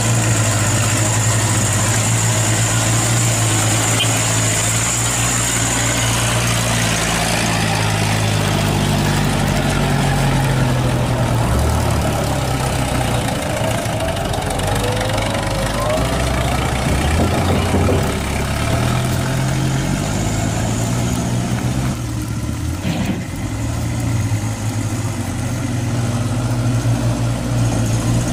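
A vehicle engine idling, a steady low hum that shifts in pitch a few times.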